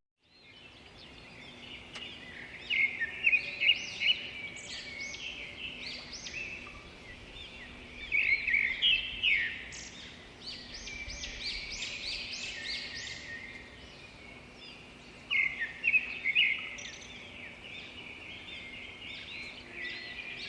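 Several small birds chattering with quick, high chirps and trills, coming thick and fast in three busy spells: a couple of seconds in, just before the middle, and about three-quarters through, with sparser chirping between.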